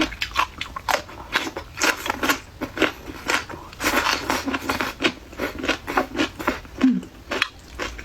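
Close-miked crunching and chewing of crisp sour-and-spicy pickled radish: rapid, repeated sharp crunches, several each second.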